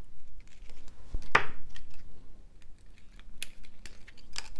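Small pair of scissors snipping plastic tag fasteners off a decoration: a handful of short, sharp snips and clicks, the loudest about a second and a half in, with light handling rustle.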